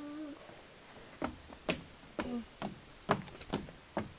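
A string of sharp clicks, uneven, about two a second and coming faster near the end; a voice trails off at the very start.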